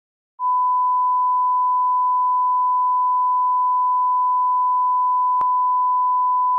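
A steady electronic test-tone beep on one unbroken pitch, starting about half a second in. A faint hiss sits under it, and there is a single click about five seconds in.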